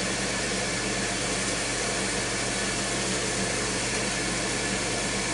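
Ninja Foodi Grill running in Air Crisp mode at 390°F mid-cook: its fan blows a steady rush of air with a low hum under it.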